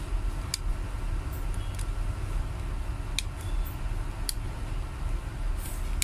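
A few small sharp plastic clicks and taps as the opened Cherry Mobile Y3 phone's housing is handled, over a steady low background hum.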